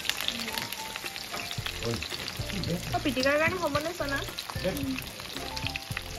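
Sliced onions frying in a black wok over a wood fire: a steady sizzle full of fine crackles. A brief indistinct voice is heard about halfway through.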